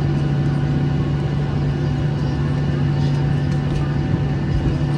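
Boeing 737-800 jet engines (CFM56-7B) running steadily, heard from inside the passenger cabin as a low hum with several steady higher tones above it.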